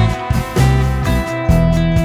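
Background music: an uplifting ballad track with plucked and strummed guitar over changing bass notes.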